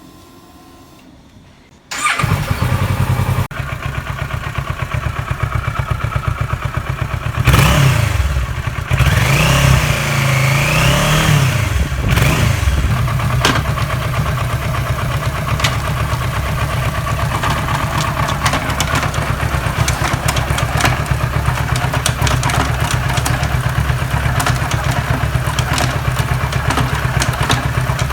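Kawasaki Versys 650 parallel-twin engine starting about two seconds in, then idling with an even low beat. The revs rise and fall briefly around a third of the way through.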